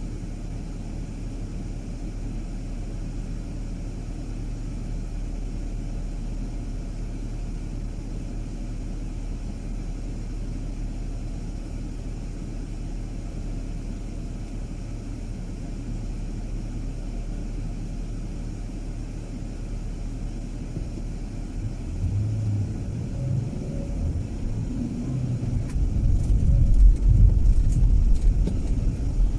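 A car driving: a steady low rumble of engine and road noise, which grows louder and uneven in the last few seconds.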